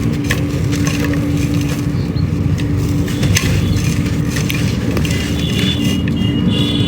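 Hands crumbling and crushing a dry, brittle material, giving scattered crackles and snaps. Underneath runs a steady low hum with one held tone, like a motor running.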